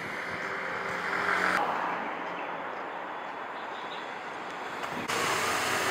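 Road traffic noise, with a vehicle passing and swelling about a second in.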